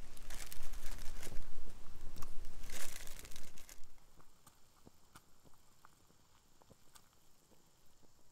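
Rustling, crinkling handling noise close to the microphone for about four seconds, full of small crackles, then it drops to faint, scattered clicks.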